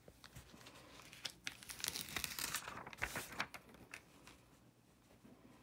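Faint crinkling and rustling of a plastic heat-transfer vinyl carrier sheet and a cotton onesie being smoothed straight by hand, with a few light taps. It is busiest around the middle and dies down near the end.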